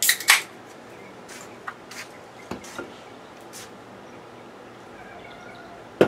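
Handling noise from a man sitting down with a beer can and a sheet of paper: two sharp clicks at the start, then scattered light ticks and taps over a steady faint background noise.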